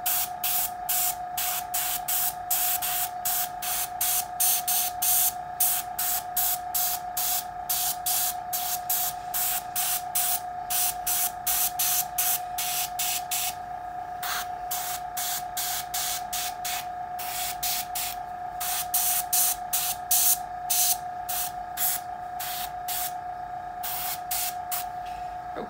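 Gravity-feed airbrush spraying heavily thinned acrylic paint in short hissing spurts, about three a second, with a few brief pauses, over a steady background hum.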